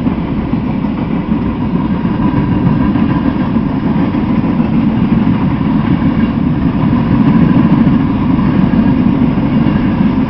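Freight train rolling past close by, a loud steady rumble with no break.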